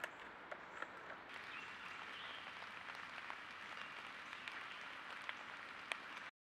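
Steady outdoor hiss picked up by a trail camera's microphone, with a few sharp clicks and ticks scattered through it. The sound cuts off abruptly near the end.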